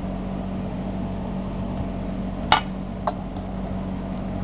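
A metal spoon knocks twice against a stainless steel mixing bowl while stirring a soft kebab mixture, the first knock louder. A steady low hum runs underneath.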